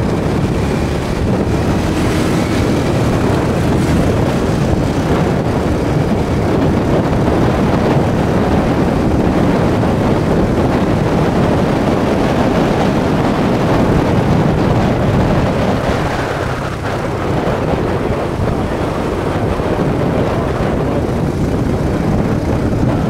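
Motorcycle engine running while riding, with wind buffeting the microphone; the sound eases briefly about two-thirds of the way through, then picks up again.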